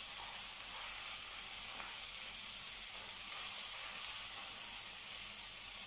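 Food sizzling steadily in hot oil in a stainless steel pan on a gas stove, stirred with a wooden spatula.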